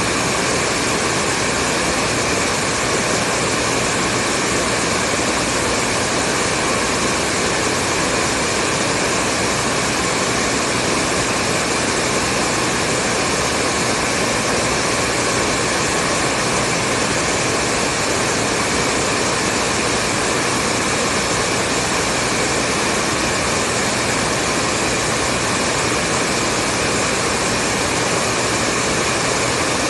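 Hair dryer running continuously at a steady speed: a constant rush of air over a motor hum, with no change in pitch or level.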